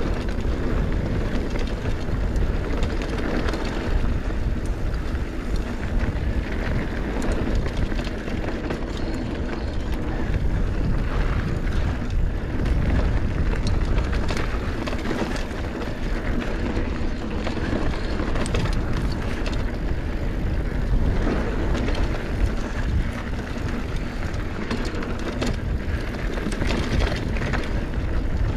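Mountain bike descending a dirt singletrack trail: a steady rush of riding noise heaviest in the low end, with scattered clicks and rattles from the bike.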